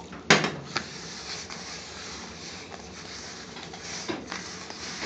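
Hands mixing chapati atta and water into a dough in a bowl: a soft, uneven rustle and squish of wet flour. A sharp knock comes just after the start, a weaker one follows within half a second, and a smaller one near the end.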